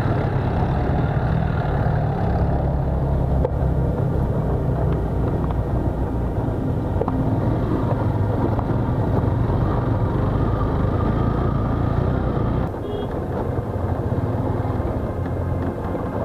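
A vehicle engine running steadily while driving, its low hum dipping briefly about three-quarters of the way through before picking up again.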